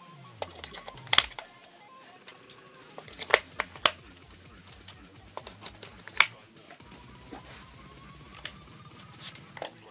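Sharp plastic clicks and taps, a handful of them spread out, from AAA batteries being fitted into a handheld radio-control transmitter and its battery compartment being handled shut.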